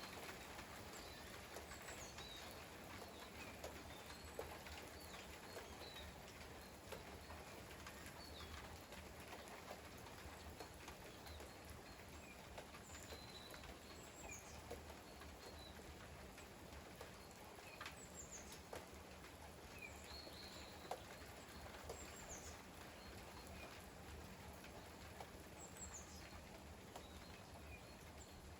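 Light rain, faint and steady, with scattered drops ticking and dripping. Short high chirps from a small bird now and then.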